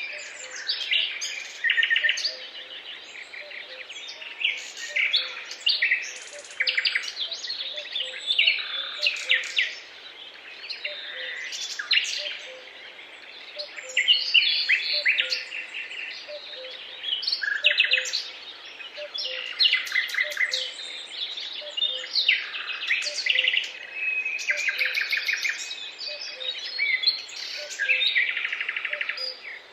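Several songbirds singing at once: a dense chorus of chirps, trills and short overlapping phrases that keeps going without a break.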